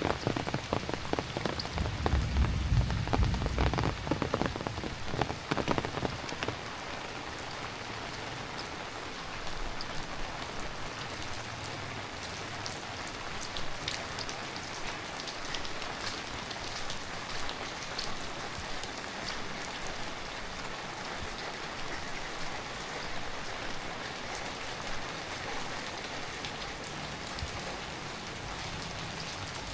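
Heavy rain falling, with many sharp, close drop hits and a low rumble in the first six seconds or so, then settling into a steady, even hiss with scattered drips.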